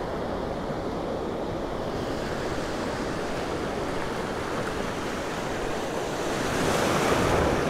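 Ocean surf breaking and washing in over shallow water, a steady rush that swells louder near the end as a wave comes in.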